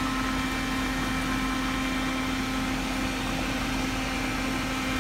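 Steady motor hum with a constant low tone over an even hiss, running unchanged throughout.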